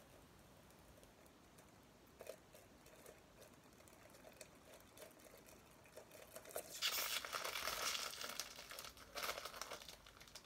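Parcel packaging being crinkled and torn by hand during unwrapping: quiet handling at first, then a spell of loud crinkling about seven seconds in and another shorter one near the end.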